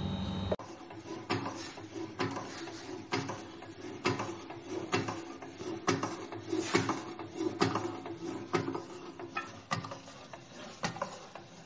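Manual rotary microtome being worked by its handwheel: a regular mechanical clack about once a second, with lighter rattling and clicking of the mechanism in between.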